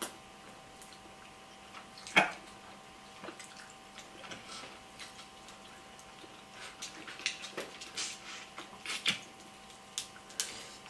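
Crab legs being cracked and snapped open by hand, with wet chewing and lip-smacking. Short sharp cracks come at intervals, the loudest about two seconds in, and there is a cluster of them in the last few seconds.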